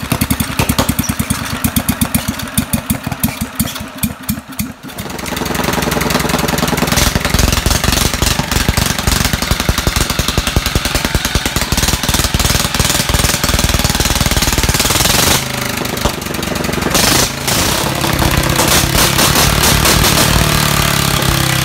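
Kubota single-cylinder engine converted from diesel to run on petrol, running with rapid hammering firing beats. About five seconds in it speeds up and gets louder, drops back briefly near the sixteen-second mark, then picks up again.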